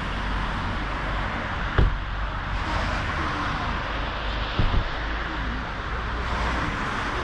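Steady outdoor background noise with a low rumble, of the kind passing road traffic and wind make. It is broken by a dull thump about two seconds in and two quick thumps a little before the five-second mark.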